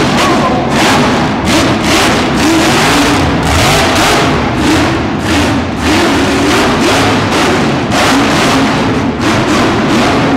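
Monster truck engine revving hard in repeated bursts, its pitch climbing and dropping with the throttle.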